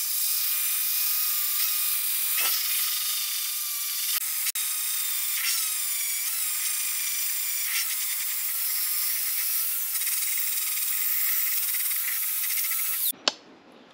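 Electric angle grinder with an abrasive disc running against the edge of an aluminum radiator tank: a steady high whine over a hiss of abrasion, the whine's pitch wavering a little as the disc bears on the metal. It stops abruptly near the end.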